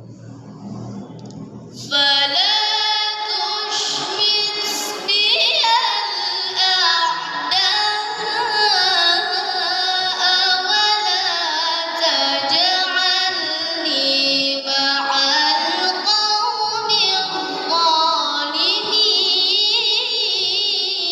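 A woman singing a long, ornamented melody with music, coming in suddenly about two seconds in.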